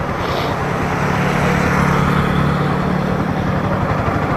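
Yamaha MT-15's 155 cc single-cylinder engine running at a steady pitch while riding, under wind and road noise.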